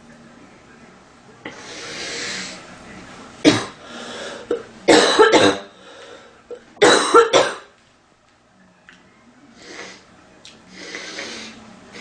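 A woman coughing. A breath in, then a single sharp cough, then two fits of several quick coughs about two seconds apart, then quieter breathing and another breath in near the end.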